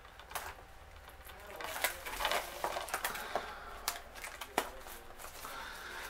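Cellophane shrink wrap on a Blu-ray case being picked at and peeled off by hand: scattered crinkling with sharp plastic clicks, busiest in the middle.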